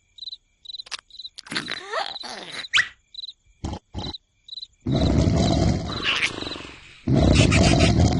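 Cartoon snoring: two long, loud, rasping snores, the first starting about five seconds in and the second about seven seconds in. Before them, a regular cricket-like chirp repeats about two or three times a second, with a few clicks and a quick rising squeak.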